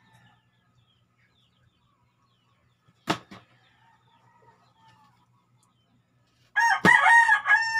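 A rooster crows once, a long call starting near the end. About three seconds in there is a single sharp knock.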